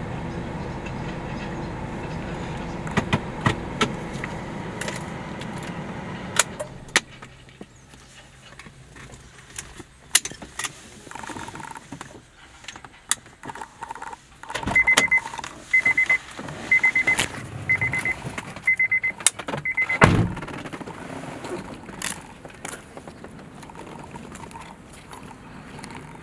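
Car interior sound: the engine hum of the moving car for the first several seconds, then, after it drops away, scattered clicks and rattles. Then a car's warning chime beeps six times, about a second apart, ending with a loud heavy thump.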